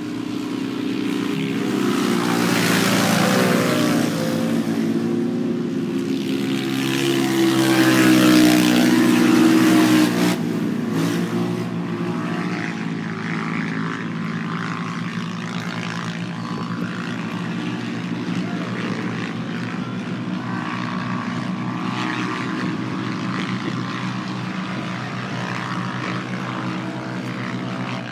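Racing UTV engines running together in a steady, many-pitched hum. The pitches shift and the sound swells loudest about eight to ten seconds in.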